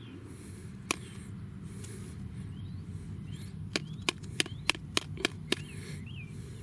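Sharp clicks or taps, one about a second in and then a quick run of seven at about three a second, over a steady low hum, with faint small-bird chirps.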